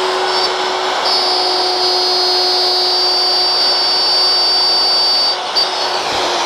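Festool OF 1400 plunge router running at full speed while its bit cuts the final, deepest pass of a mortise in wood: a steady high whine over the cutting noise, dipping briefly about five seconds in.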